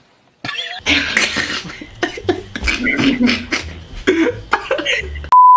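Irregular bursts of a person's voice and coughing. Near the end comes a loud, steady, single-pitch beep of about half a second that cuts off suddenly, a censor bleep.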